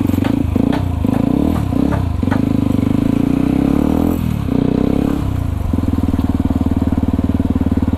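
Yamaha WR155R single-cylinder motorcycle engine running while ridden. The revs shift up and down at first, drop sharply about four seconds in, and then settle to a steady note.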